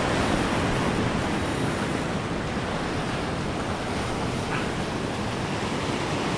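Ocean surf washing in over a rocky shore: a steady rush of breaking water.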